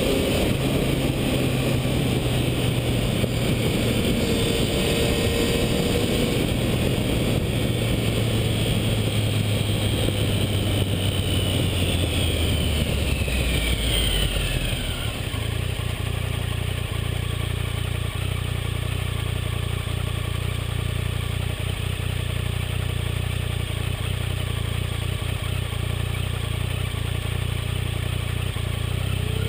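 Triumph Tiger 1050's three-cylinder engine running under way with wind rush; about halfway through the engine note falls away as the bike slows, then it runs on steadily at a lower pitch with less wind.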